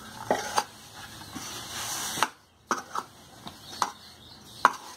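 Hand kneading stiff flour dough in a stainless steel bowl: a soft pressing and rustling of the dough with about seven sharp knocks of the hand against the bowl, the loudest near the end.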